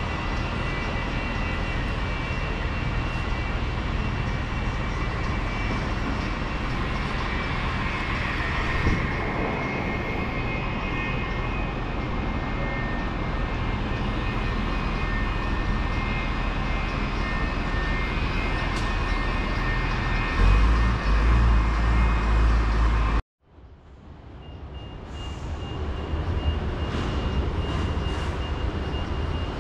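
Steady hangar noise from machinery and ventilation, with a faint high whine or two above it. Near the end a heavy low rumble grows, then the sound cuts out suddenly and fades back in.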